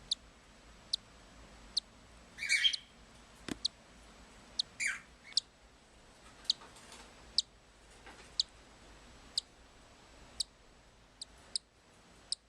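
Newly hatched cockatiel chicks peeping: short, thin, high peeps about once a second, with two longer, louder chirps a few seconds in.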